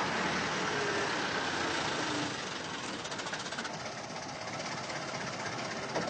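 A car engine running steadily, a little quieter after about two seconds.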